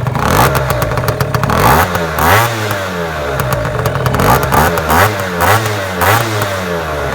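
Genuine Roughhouse 50 scooter's 50cc two-stroke engine revved in about six short blips, each rising and falling back toward idle, with a LeoVince TT pipe.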